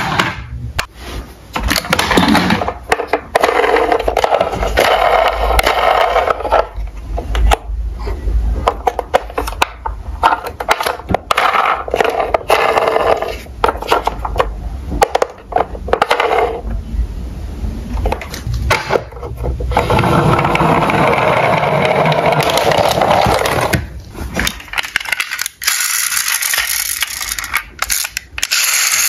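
Toy police cars, including small metal diecast ones, clattering, clicking and scraping against each other in a cardboard box as they are handled and picked out, with many sharp knocks.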